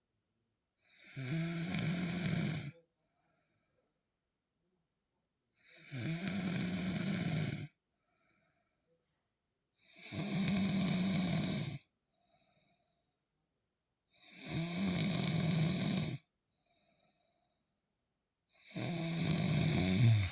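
A woman snoring: five long snores, each about two seconds, one every four to five seconds, with silence between them.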